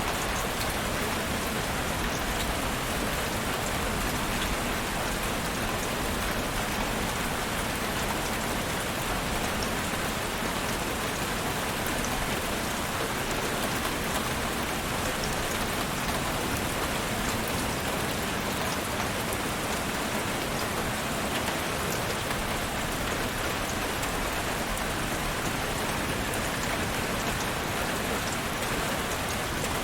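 Steady rainfall, a constant even hiss of drops falling on a surface, with scattered small drop ticks.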